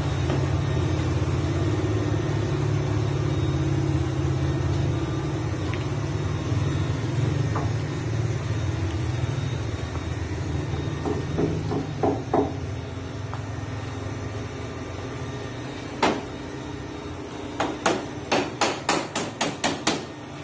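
A hammer striking the wooden planks of a boat hull: a few light taps, a single hard blow, then a quick run of about nine strikes, three to four a second, near the end. A steady low hum runs under the first half.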